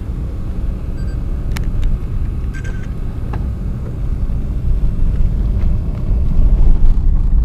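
Steady low road rumble heard from inside a moving four-wheel-drive vehicle, with a few faint clicks; the rumble grows louder near the end.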